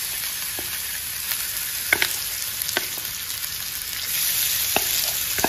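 Hot oil sizzling in a kadhai with onion, chilli and spices as mashed boiled raw banana is dropped in, with a few sharp clicks. The sizzle grows louder about four seconds in.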